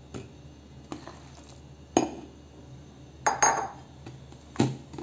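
Metal kitchenware knocking and clinking about five times: a steel spoon against a steel pot. The loudest knocks come about two seconds in and again between three and a half and five seconds.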